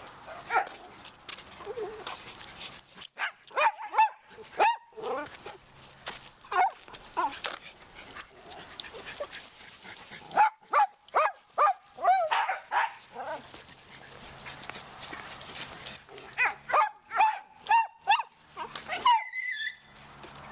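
Several dogs barking in short bursts as they play rough, with scuffling between the bursts. Near the end a small dog cries out in a higher, sliding yelp, as if stepped on.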